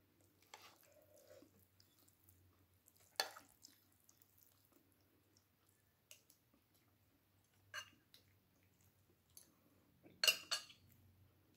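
A few sharp clinks of cutlery and dishes during a meal, with soft handling noises between; the loudest comes as a quick double clink near the end.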